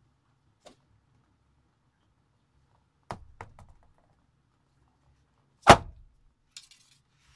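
Shaman frame drum struck with a beater: a faint tap near the start, a few light taps about three seconds in, then one loud stroke about six seconds in that rings low briefly.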